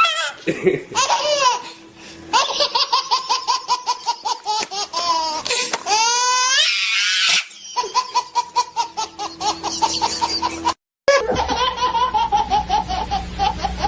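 High-pitched laughing in rapid, repeated bursts, with rising and falling pitch. It stops for a moment about eleven seconds in, then a second laughing clip starts over a steady low hum.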